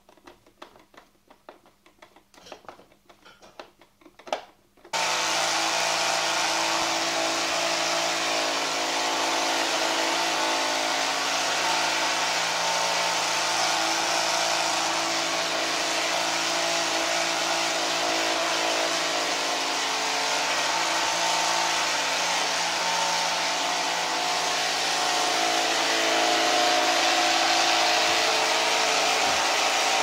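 Faint clicks of plastic parts being handled. About five seconds in, a Beck robot vacuum cleaner starts abruptly and runs steadily: its motor and fan whine over a hiss, with its main brush turning in its newly refitted holder bushing.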